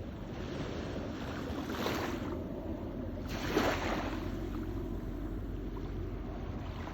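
Small waves washing onto the shore, two swells of surf about two and three and a half seconds in, the second the louder, over a steady low rumble.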